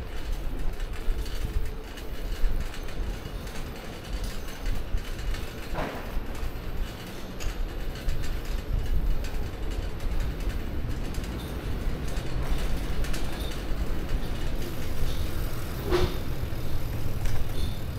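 City bicycle rolling over brick paving, its mechanism clicking and rattling steadily, with a low wind rumble on the microphone and two brief louder knocks, about six seconds in and near the end.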